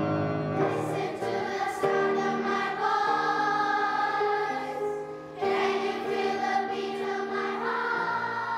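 Children's choir singing together, holding long notes that move from pitch to pitch, with a short breath break about five seconds in.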